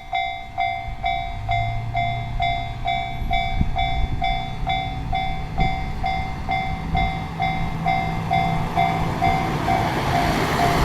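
Japanese level-crossing alarm bell ringing steadily, about three dings a second, over the low hum of a diesel railcar's engine, with a rising rush of train noise near the end.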